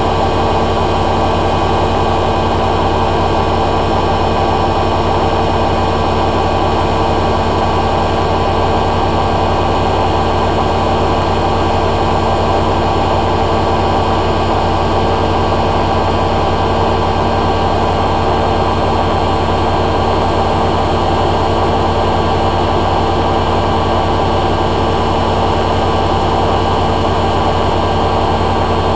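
Hoover A3786 Logic Deluxe washing machine in its final spin, the drum running at a steady high speed with a constant loud whine and hum.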